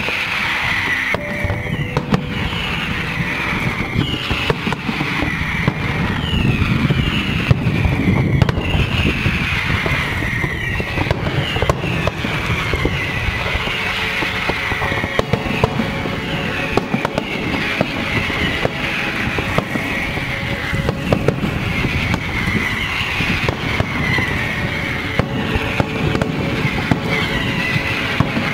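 Fireworks display going off: a dense, continuous crackle of bursting shells and low booms, with a high falling whistle repeating about once a second.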